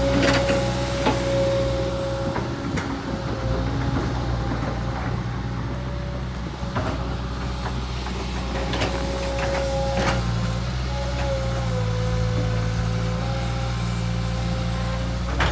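An engine running steadily, with a steady high whine over it and a few sharp knocks.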